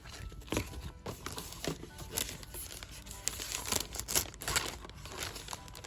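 Paper and packaging crinkling and rustling in irregular handling noises as posters are folded and put away.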